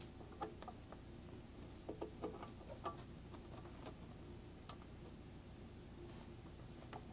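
Faint, irregular light clicks and taps of a serial cable and plastic air hoses being handled against a metal control box, over a low steady hum.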